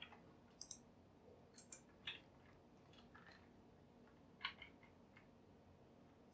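Near silence with a handful of faint, scattered clicks from a computer keyboard and mouse.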